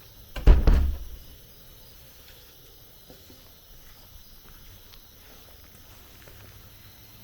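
Jungle insects chirring steadily as a thin, high background. A single loud, low thump lasting under a second comes about half a second in.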